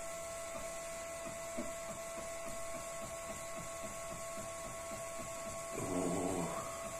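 Desktop CNC laser engraver at work: a steady whine of several tones from its stepper drive and cooling fan, with rapid faint ticking as the laser head steps across the slice.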